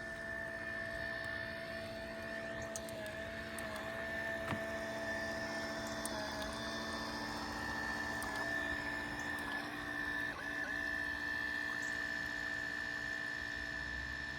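Toy RC boat's small electric motor whining steadily, its pitch dipping briefly a few times.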